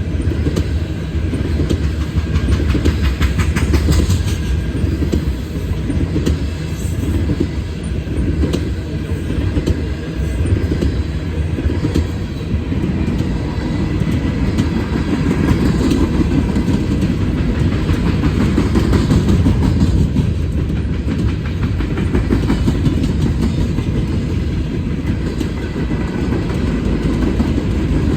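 Norfolk Southern freight train's cars rolling steadily past: a continuous low rumble with the wheels clacking over rail joints.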